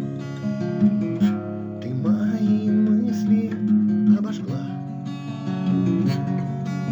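Acoustic guitar music: an instrumental passage of the song, strummed and plucked over sustained chords.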